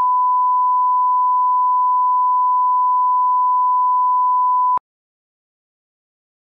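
Steady 1 kHz reference tone, the line-up test tone that runs with broadcast colour bars, one unbroken pitch that cuts off suddenly about three-quarters of the way through.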